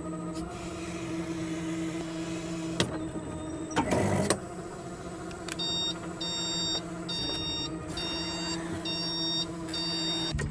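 NESHER L1400 electric loader running its hydraulics with a steady electric whine while working an excavator attachment. A brief loud rush of noise comes about four seconds in. From about halfway, an electronic beeper sounds about once a second, six times, as the loader moves away from the truck.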